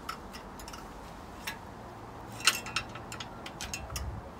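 Light metal clicks and clinks of a steel bicycle carrier rack's handlebar brackets and fittings being handled and hooked on, irregular, with one louder ringing clink about halfway through.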